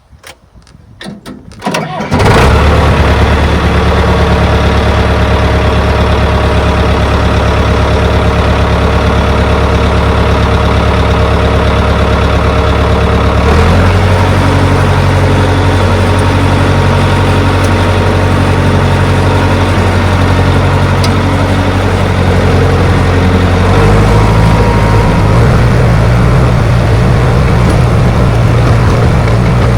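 Bulldozer's diesel engine cranking and catching about two seconds in, then running loud and steady, its speed changing twice.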